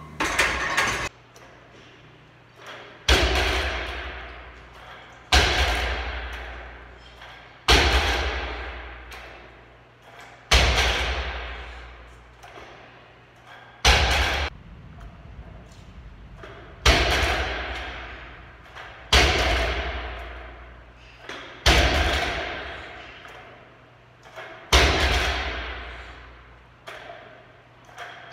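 Barbell loaded with bumper plates set back down on a rubber gym floor at the bottom of each Pendlay row rep: about ten heavy thumps every two to three seconds, each followed by a ring from the bar and plates that dies away.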